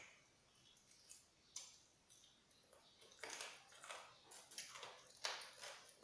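Faint crunching and chewing of fried chicken, mostly quiet at first, then a run of short crackly sounds, several a second, from about halfway through.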